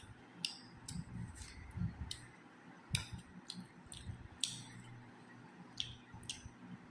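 Close-miked eating sounds: wet chewing and mouth smacks, with about ten sharp clicks scattered irregularly and a few soft low thuds in the first half.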